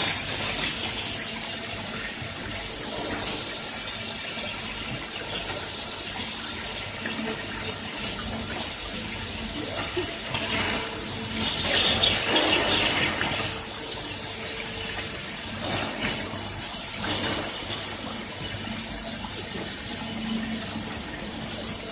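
Cooling water spraying and splashing onto freshly cast aluminium rods as they come off a horizontal continuous casting line. It is a steady rushing of water that swells louder about halfway through, with a low steady hum underneath.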